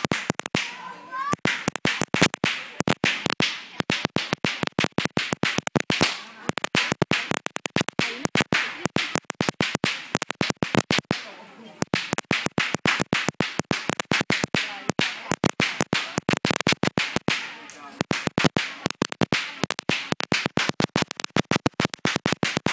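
A long string of firecrackers going off: a rapid, irregular crackle of sharp bangs.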